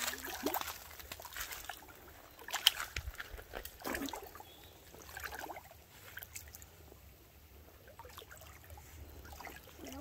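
Shallow water trickling and sloshing, with scattered small splashes and rustles of someone moving carefully through it; one sharper knock or splash stands out about two and a half seconds in.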